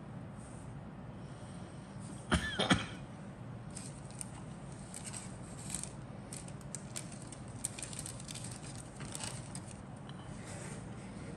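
Plastic model-kit sprues being handled: a brief loud clatter with a short squeak of plastic scraping on plastic about two seconds in, then scattered light ticks and taps of the sprues against each other and the cutting mat. A steady low hum runs underneath.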